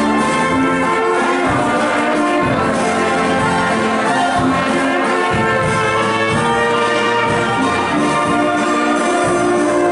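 Brass band playing folk dance music, with sustained melody notes over a steady bass beat.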